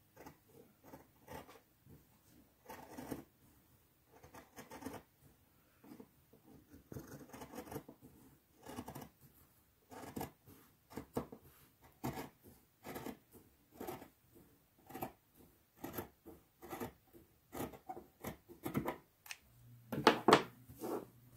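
Scissors cutting through cotton fabric: a steady run of snips, about two a second, with a couple of louder strokes near the end.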